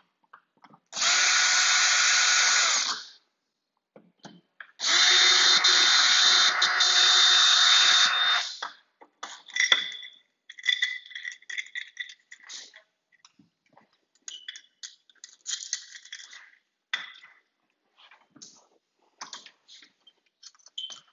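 Cordless drill-driver running in two bursts of about two and three and a half seconds, backing out the screws of an old door knob. Afterwards come light clicks and short metallic rattles as the lockset parts are taken off.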